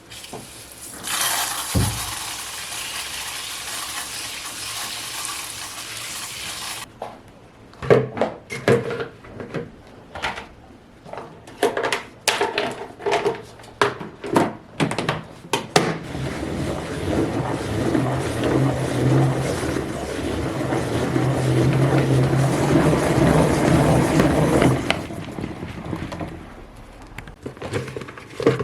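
Water running steadily and stopping abruptly, then a series of clinks and knocks from dishes and containers being handled, then water running again for several seconds.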